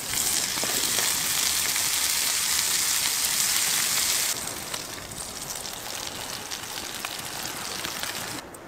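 Oil sizzling loudly in a wide pan as small whole fish fry over a wood fire, a dense hiss with fine crackles. About four seconds in it drops abruptly to a quieter sizzle.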